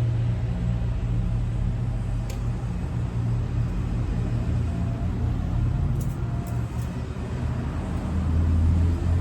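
A motor vehicle's engine running steadily, a low hum, with a few faint ticks.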